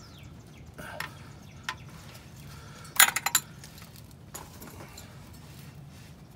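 Light metal clinks and taps while a spin-on oil filter is unscrewed by hand, with a sharp clatter of several quick knocks about three seconds in.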